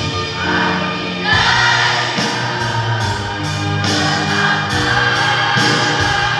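School choir singing a hymn in parts, holding long notes over instrumental accompaniment; from about two seconds in, a steady beat runs under the voices.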